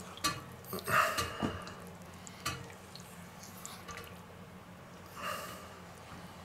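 Spatula stirring a soft chocolate and butter mixture in a stainless steel bowl: quiet wet squelching and scraping against the metal, with a few louder swishes and a small click.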